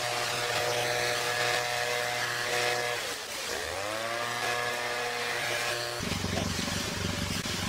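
Two-stroke backpack leaf blower engine running steadily. About three seconds in it drops in pitch as the throttle is eased off, then climbs back. Near the end the sound changes to a rougher, lower engine drone.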